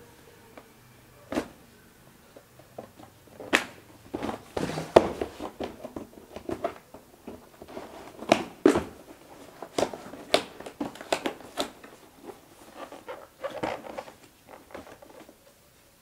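Cardboard box of an MSI Vigor GK40 keyboard being handled and opened: irregular knocks, taps and scrapes of cardboard and packaging, the loudest about five and nine seconds in.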